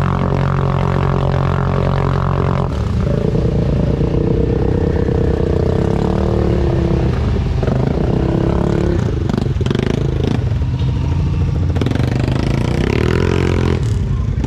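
Yamaha Grizzly ATV engine idling steadily, then running with rising and falling revs from about three seconds in as it gets under way.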